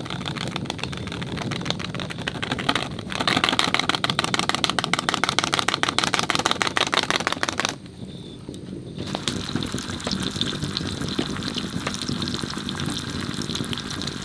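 Wood fire crackling and hissing under a frying pan as it is fanned to raise the heat, with a louder, denser stretch of crackle from about three seconds in to near the middle. After a brief dip, butter and sliced garlic sizzle and bubble in the pan.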